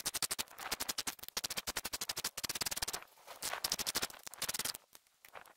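Hand ratchet wrench clicking rapidly as it turns the threaded rod of a coil-spring compressor, backing the compressor off to let the strut's coil spring extend. The steady run of clicks breaks into shorter spells about halfway through and stops near the end.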